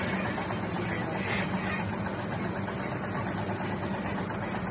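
Steady low engine hum with a constant hiss over it.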